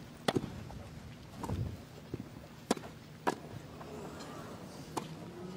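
Tennis ball struck by rackets during a rally: four sharp pops spread over a few seconds, two of them about half a second apart.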